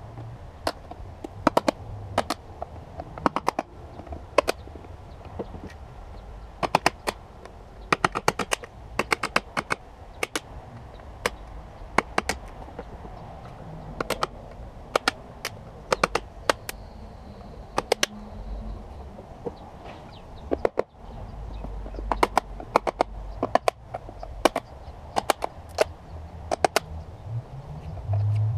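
Hammer blows on a long steel tool wedged into the plastic lid of a lead-acid car battery, driving it in to break the case open. The strikes are sharp taps, mostly in quick groups of two to four, repeating through the whole stretch.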